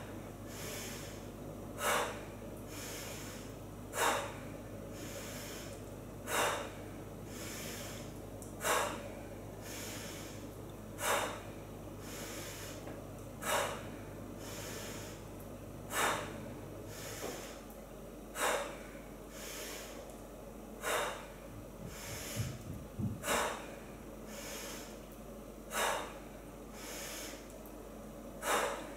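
A woman's short, forceful breaths out, one about every two and a half seconds, exertion breathing timed to each repetition of an elbow raise against a mini resistance band.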